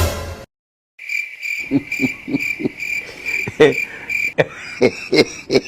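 A short cough at the very start, then silence, then crickets chirping in a steady pulsing trill from about a second in, with soft regular knocks about three times a second underneath.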